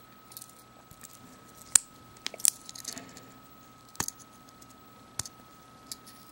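Leatherman multitool being handled and its implements flipped open: several sharp metal clicks spaced a second or so apart, with light rustling between them.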